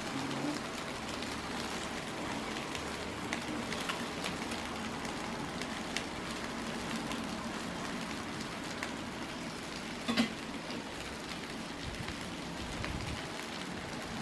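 Foil food packets sizzling on a grill: a steady hiss with scattered small pops and crackles, and a single knock about ten seconds in.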